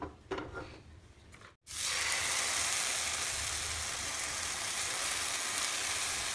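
Semolina uttapam batter sizzling on a hot oiled tawa as it is poured and spread with a spoon. A steady hiss of frying sets in about a second and a half in, after a few faint clicks.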